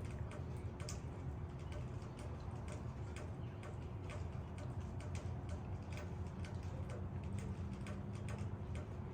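Rain dripping onto leaves: irregular sharp drip ticks, several a second, over a low steady rumble.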